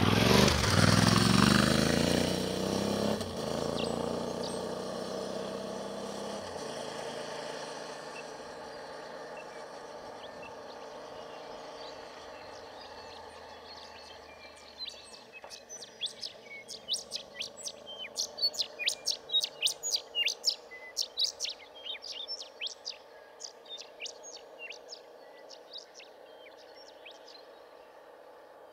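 Adventure motorcycle pulling away and shifting up through the gears, its engine fading into the distance over the first several seconds. Later a bird calls in a rapid series of short, high chirps for several seconds.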